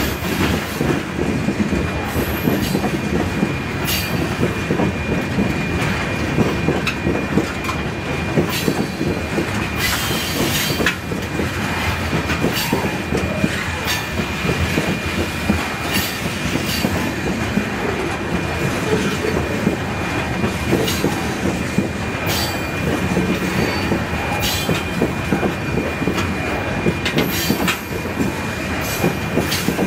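Open-top rock hopper cars of a freight train rolling slowly through a curve on a wye. A steady high-pitched wheel squeal runs over a constant rumble, broken by irregular clicks from the wheels over rail joints.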